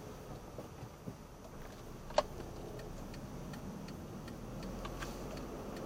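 A car's turn indicator ticking evenly, a few ticks a second, with one sharp louder click about two seconds in, over the low hum of the engine and tyres at walking pace.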